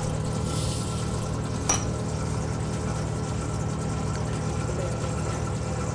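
Cotton candy machine running as its spinning head throws out sugar floss: a steady motor hum with a faint high whine, and one brief click about two seconds in.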